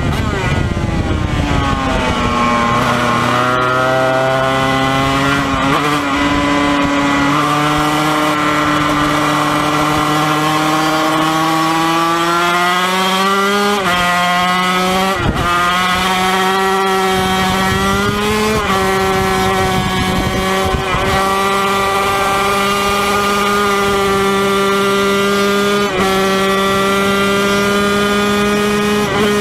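Yamaha TZ250 two-stroke twin racing engine on the track: its note falls sharply at first as it slows into a corner, then climbs through the gears, with a few brief breaks for upshifts around the middle, and holds a steady high note near the end.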